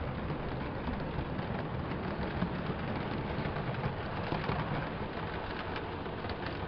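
Model freight train rolling along metal track, a steady rumble of wheels on rail with faint light clicks.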